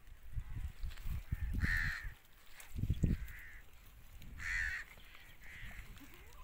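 A crow cawing four times in harsh calls spread through the clip, over low rumbling thuds that are loudest in the first three seconds.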